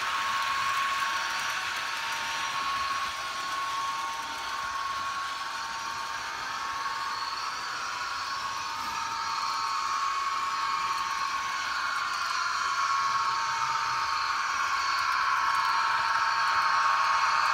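Märklin H0 BR 218 model diesel locomotive running along the layout track: a steady whir with a thin high whine that drifts slightly up and down in pitch.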